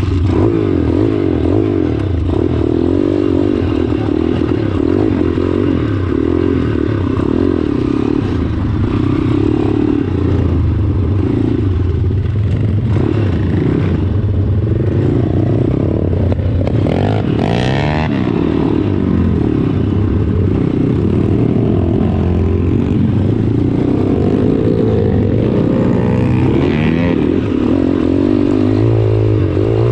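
Four-stroke pit bike engines running under way on a dirt track, the pitch rising and falling with the throttle and gear changes, with a sharper rev about 17 seconds in.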